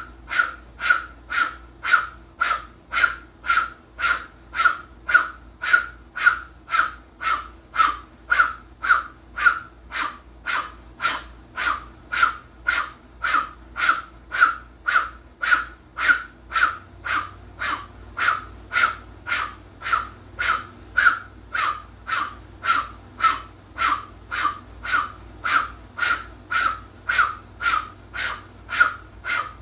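Breath of fire through an O-shaped mouth: rapid, forceful rhythmic breathing at a steady pace of about two sharp breaths a second.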